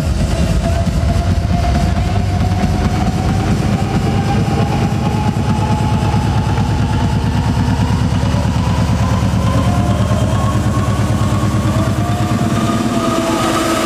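Loud live trance music through an arena sound system: a build-up, with a fast pulsing beat under a synth tone that climbs steadily in pitch.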